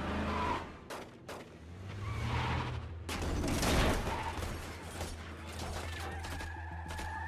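Gunfire in a film's street shootout: a couple of sharp shots about a second in, a loud rush of noise swelling and fading just before the middle, then more shots near the end, over a steady low rumble.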